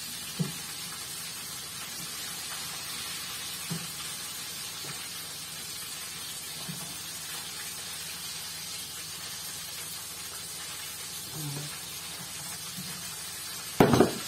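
Steady room hiss with a few faint, soft sounds of hands shaping dough balls on a floured wooden board, and one sharp knock near the end.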